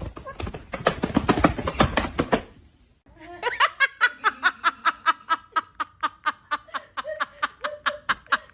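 A fast run of sharp clicks for about two and a half seconds, then, after a short gap, a steady run of short pitched laughing pulses, about four a second.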